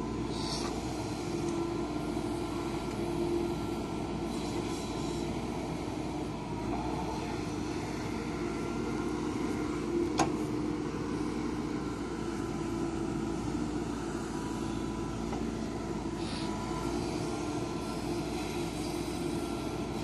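JCB 3DX backhoe loader's diesel engine running steadily under load while the backhoe arm digs and dumps soil. A single sharp knock about halfway through.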